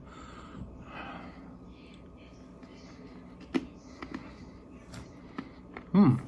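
A cocoa-coated roasted almond being chewed: a few faint, sharp crunches from about three and a half seconds in. A short hummed vocal sound comes near the end.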